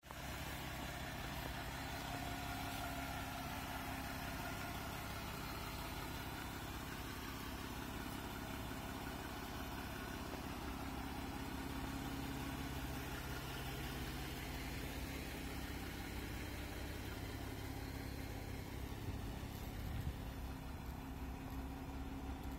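2021 Jeep Wrangler JL Unlimited Sahara idling, a steady low engine hum.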